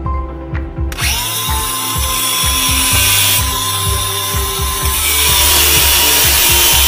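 Angle grinder starting about a second in and grinding steel on a gear-reducer part, a steady motor whine under the grinding noise, which grows louder about five seconds in. Background music plays underneath.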